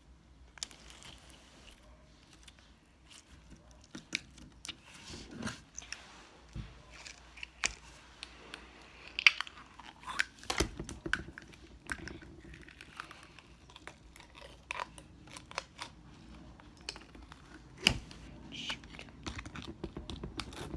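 Hard, crunchy red slime being squeezed and pressed by hand, giving irregular crackles and clicks, with a few sharper pops. The slime is stiff, more like a putty, and hard to crunch.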